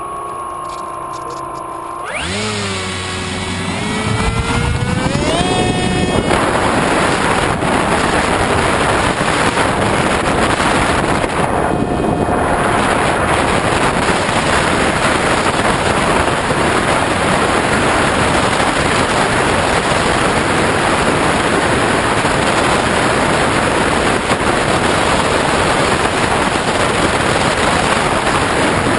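Onboard sound of an RC model airplane: its motor climbs steadily in pitch from about two to six seconds in as the throttle opens for the takeoff run. After that, steady rushing wind on the onboard camera's microphone covers it through the climb and banking flight.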